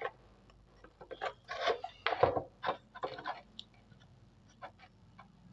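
A few light clicks, taps and rubs of small bulb parts being handled during LED bulb repair, bunched in the middle, then only faint scattered ticks.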